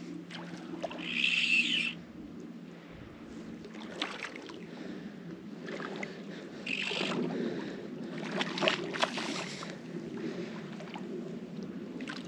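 A hooked trout splashing and thrashing at the surface in shallow water as it is played toward the net. There are a few short bursts of splashing, about a second in and again around seven and nine seconds in, with water sloshing between.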